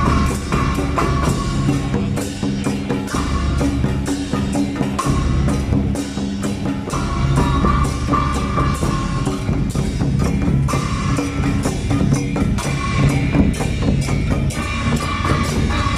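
A temple procession percussion band plays a fast, steady beat on hand-held gongs, small cymbals and drums. The gong strikes ring on between the beats.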